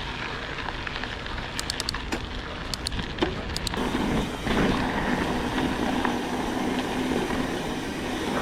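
Mountain bike rolling along a dirt trail: steady tyre and wind noise with a few light clicks and rattles early on, then from about four seconds a louder stretch with a steady low hum underneath.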